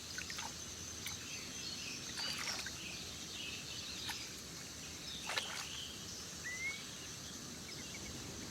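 Faint wetland field ambience: a steady high hiss of insects, with scattered short bird chirps and a few sharp clicks, and one quick rising chirp near the end.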